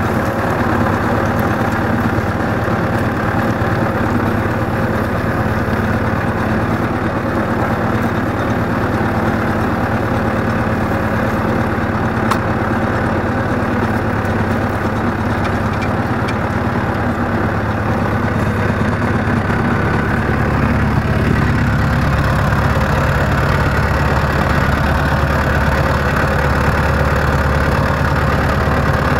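Small tractor engine running steadily while pulling a mounted plough through the soil. About twenty seconds in, the engine note changes to a deeper, slightly louder sound.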